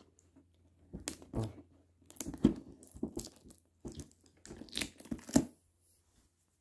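Adhesive tape being picked and peeled off a cardboard figure box: a run of irregular short tearing and scraping noises that stops about a second before the end.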